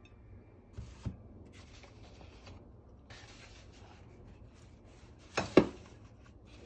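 Paper sliding and rubbing across a paper-covered tabletop, with small knocks about a second in. Near the end come two louder knocks, a fraction of a second apart, as a white palette dish is set down on the table.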